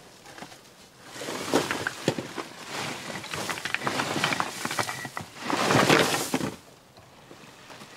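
Dry leaves and loose debris being raked and scraped along the ground with a long-handled tool: a rustling, crackling scrape with small clicks, in uneven strokes that start about a second in and are loudest just before they stop.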